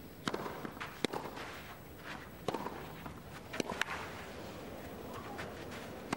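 Tennis racquets striking the ball in a clay-court rally, starting with a serve: about half a dozen sharp pops a second or more apart, over a hushed crowd.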